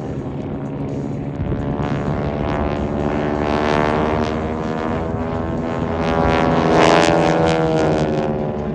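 A formation of vintage T-6 Texan trainers makes a low pass, its Pratt & Whitney R-1340 radial engines and propellers snarling. The sound builds to its loudest about seven seconds in, then fades, the pitch shifting as the planes go by.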